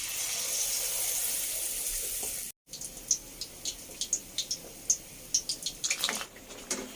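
Batter-coated paneer deep-frying in hot oil: a steady sizzle, then after a cut a run of sharp crackles and spits from the oil.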